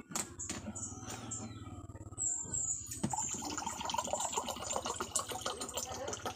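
Water poured from a plastic jug into a cup, a continuous splashing pour that starts about halfway through, after a few light clicks.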